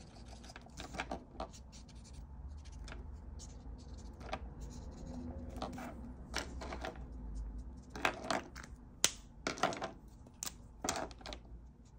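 Plastic alcohol markers handled on a desk: picked up, set down and knocking against the desk and each other in a run of sharp clicks and clacks, loudest in the last few seconds. A low steady hum runs underneath.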